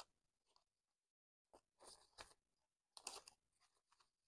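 Paper banknotes rustling and crinkling as a handful of bills is fanned out and squared into a stack: a few short, faint crackly rustles with quiet gaps between them.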